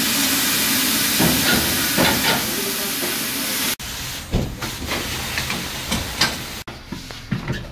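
A loud steady hiss that cuts off suddenly a little under four seconds in. Then scattered knocks and clunks as a car wheel is handled at a tyre-changing machine.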